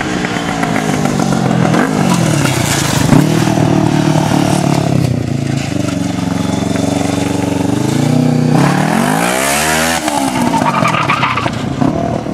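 Racing lawnmower's engine revving up and down as the machine races around: the pitch drops about two seconds in, climbs and holds high for several seconds, falls again about eight seconds in, then climbs once more.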